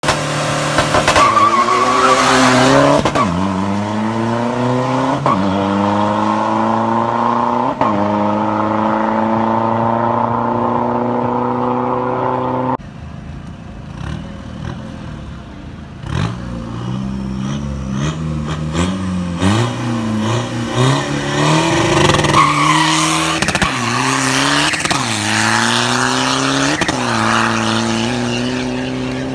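Modified Isuzu D-Max pickup's diesel engine accelerating hard down a drag strip. Its pitch climbs through each gear and drops sharply at each of several upshifts. Partway through, the sound becomes quieter and more distant, then climbs and shifts again.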